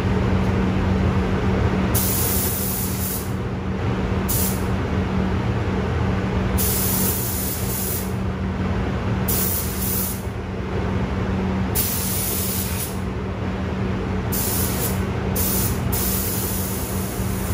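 Paint spray gun hissing in repeated bursts of about half a second to a second and a half as the painter test-sprays to set the pattern, fluid and air pressure. Under it runs the steady drone and hum of the running paint booth.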